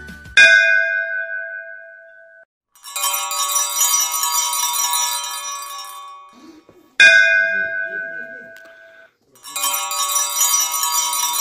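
Temple bells: a bell is struck twice and each time rings on in steady tones, fading away. Between and after the strikes comes a bright jangle of many small bells ringing together.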